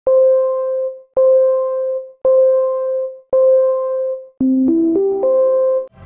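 Short electronic keyboard jingle: one note struck four times about a second apart, each left to ring and fade, then a quick rising run of notes that lands back on the same note, which stops suddenly.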